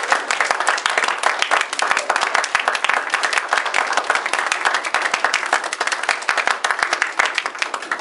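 Applause from a small audience of children and adults, many hands clapping steadily in quick, overlapping claps.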